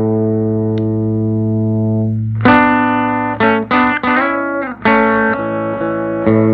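Telecaster electric guitar played through a 1968 Fender Vibrolux tube amp. A held chord rings for about two seconds, then several chords are strummed in quick succession, and another chord is held near the end.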